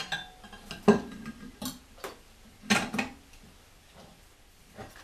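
Steel blade and cap iron of a Juuma No. 6 bench plane clinking and knocking against the plane's frog and body as they are seated in place. A handful of sharp metallic clinks, the loudest about a second in and near three seconds.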